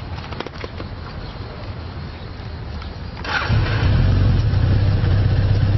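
BMW R 1100 GS motorcycle's boxer-twin engine: after a few seconds of quieter background with light clicks, the engine comes in about three and a half seconds in and runs loud and steady with a deep rumble.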